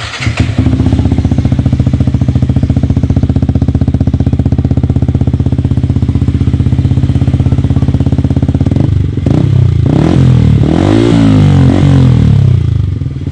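Motorcycle with a Triton Neuro-series stainless steel aftermarket exhaust idling steadily, then blipped a few times from about nine seconds in, the pitch rising and falling with each rev, before settling back to idle near the end.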